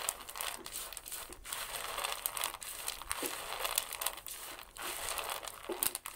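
A hand mixing a heap of chickpeas on a ceramic plate: a continuous rustle of the peas rolling and clicking against each other and the plate.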